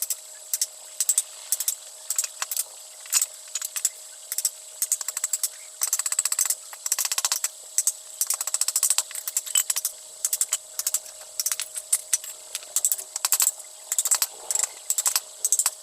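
Woodworking tools on wood: a string of sharp, irregular taps and clicks in quick clusters, with a fast run of clicks about six seconds in, over a faint steady whine.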